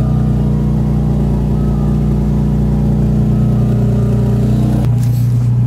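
Infiniti G35's VQ35DE V6 idling steadily, still on its busted Y-pipe. The sound thins out abruptly near the end.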